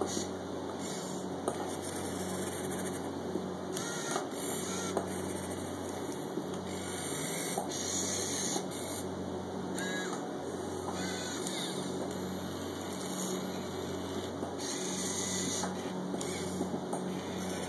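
Small motors of a 1:50 scale radio-controlled Komatsu PC1250 excavator model whirring steadily, with brief higher whines and small clicks coming and going as it is worked.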